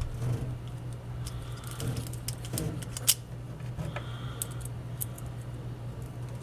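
Small metal parts clicking and tapping as nuts are fitted onto the stamped-metal frame of a Marx 666 toy train motor, with one sharper click about three seconds in. A low steady hum runs underneath.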